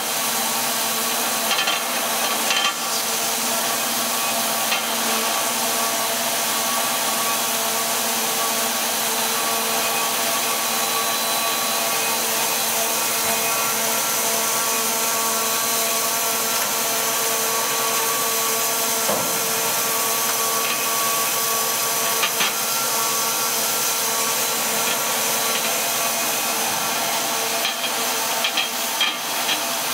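Two-stage recycling machine running steadily: a constant machine noise with several steady tones over a hiss.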